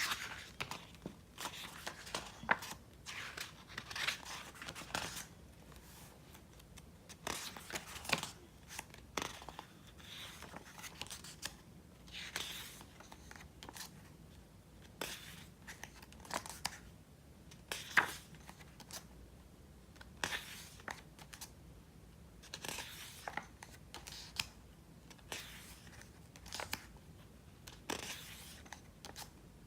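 Pages of a thick album photo book being turned one after another, each turn a short papery swish, with one sharper snap about eighteen seconds in.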